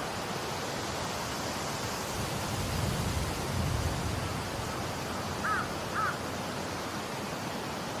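Steady wind noise, with a stronger low gust about three seconds in. Near the end, two short bird calls half a second apart.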